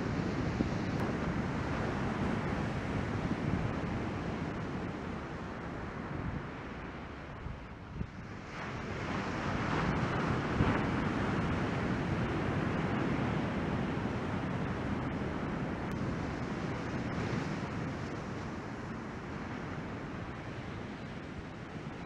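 Surf breaking and washing onto the beach, with wind buffeting the microphone. A louder rush of breaking whitewater swells up about nine seconds in and slowly fades.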